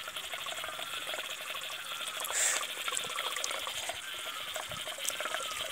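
Steady background chorus of small calling animals: a dense, rapid ticking high up, with short repeated calls lower down. A brief hiss comes about two and a half seconds in.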